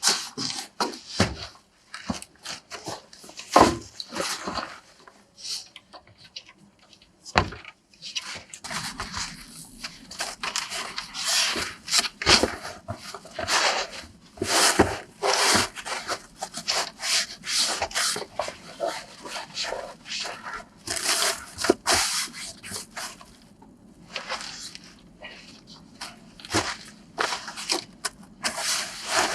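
Irregular scraping and rustling with a few sharp knocks in the first few seconds, then dense rubbing and scraping: gear being handled and moved about on wooden boards.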